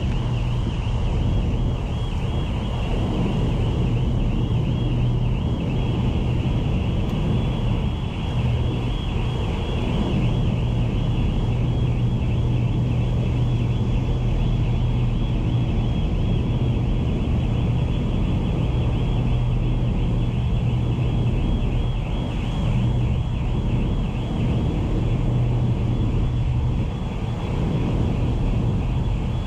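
Car ferry St Faith's diesel machinery running, a steady low hum over a rumble, with a fast fluttering buzz higher up throughout.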